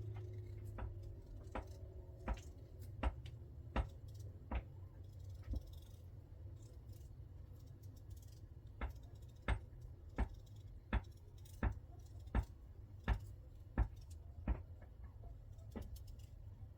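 A series of short, sharp knocks at an even pace of about three every two seconds, stopping for about three seconds midway and then starting again, over a low steady hum.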